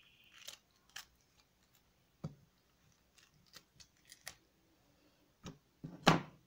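Pieces of pineapple dropped into a plastic blender beaker full of carrot chunks: a series of light, irregular knocks and clicks, with the loudest one near the end.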